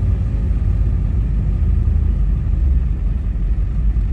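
Steady low rumble of a vehicle's engine and tyres heard from inside the cab while driving slowly across a gravel yard.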